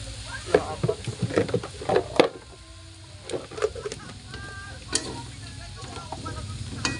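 Wooden spatula stirring and knocking against an aluminium wok full of chicken feet, a quick run of clicks and scrapes in the first couple of seconds, over a faint sizzle.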